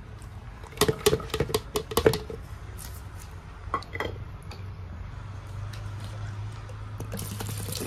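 Pomegranate arils dropping into a plastic blender jar, with the plastic bowl knocked against the jar to shake out the last seeds: a quick run of light clicks and knocks in the first couple of seconds, then two more about four seconds in.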